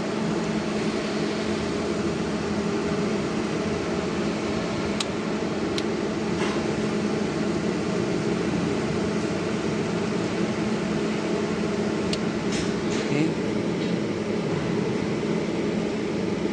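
Steady electrical hum of welding equipment with a broad hiss over it, broken by a few sharp clicks about five, six and twelve seconds in.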